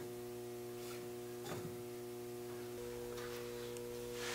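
Steady electrical hum: an unchanging buzzing tone with evenly spaced overtones. A slightly higher tone joins in a little under three seconds in, and there is a faint click about one and a half seconds in.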